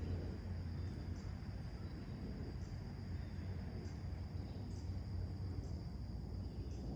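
Late-summer outdoor morning ambience: a steady high-pitched insect trill, with short high chirps about once a second, over a steady low rumble.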